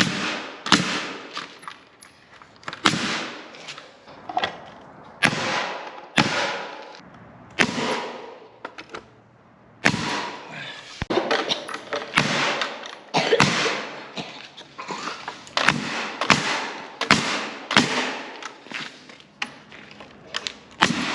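Nails being driven into the coop's framing: a run of sharp strikes, about one a second at uneven intervals, each followed by a short fading tail.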